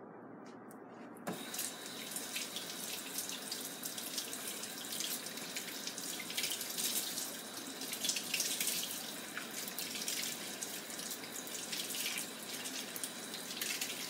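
Kitchen tap turned on about a second in, water running into a stainless steel sink and splashing over hands being rinsed under it.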